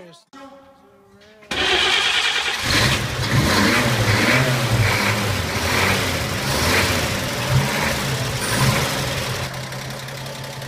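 1953 Chevrolet 3100 pickup's inline-six engine starting about a second and a half in and then running steadily with regular pulses, easing slightly near the end.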